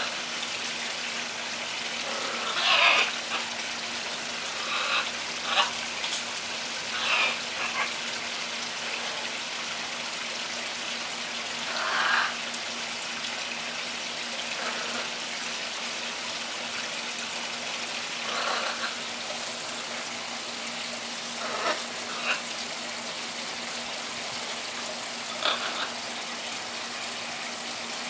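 Steady splashing of running water from a garden pond, with a faint steady hum under it. About eight short, croaky parrot calls are scattered through it, the loudest about three seconds in.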